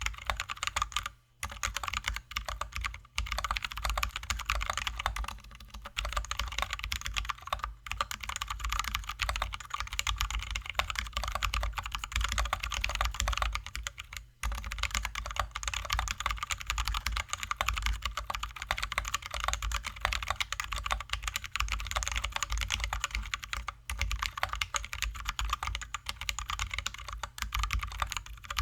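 Continuous fast typing on a Drop ALT high-profile mechanical keyboard with lubed, filmed Zealios V2 67g tactile switches and XDA-profile keycaps, giving a dense run of keystroke clacks with a few short pauses.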